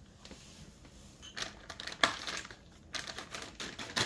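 Crinkling rustles and a string of light clicks as things are handled, with the sharpest click about two seconds in and another just before the end.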